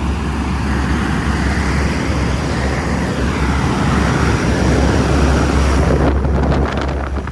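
Large outdoor refrigeration condensing unit running: a steady rush of its big fan over a low hum. There is some wind buffeting on the microphone near the end, and the sound cuts off abruptly at the end.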